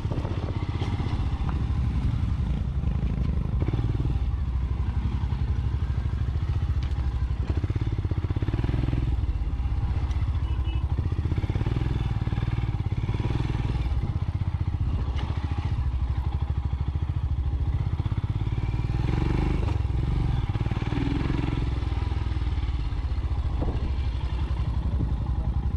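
Royal Enfield Scram 411's single-cylinder engine running steadily while the bike is ridden over grass, heard from the handlebars, with no big revs.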